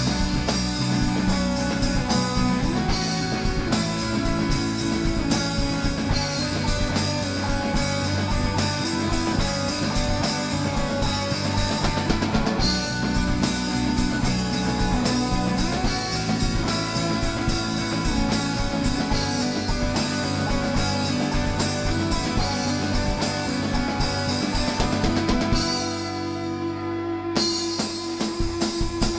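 Rock band playing, with drum kit, guitars and bass. Near the end the drums and cymbals drop out for about a second and a half under a single held low note, then the full band comes back in.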